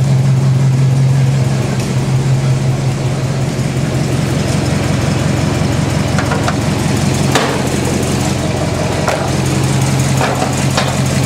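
Holden VC Commodore engine idling steadily through its new exhaust, with a single sharp click about seven seconds in.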